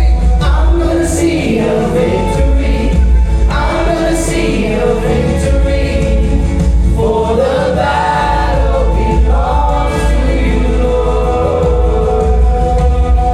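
Live gospel worship song: several voices singing together over a band with a strong, steady bass line.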